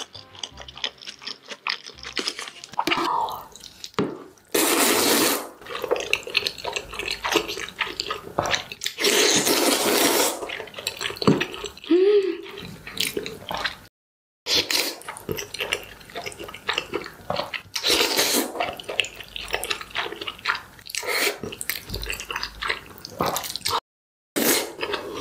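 Close-miked slurping and chewing of jjajangmyeon (black bean noodles in thick sauce): wet, sticky mouth sounds with several long, loud slurps of noodles. The sound cuts out briefly twice.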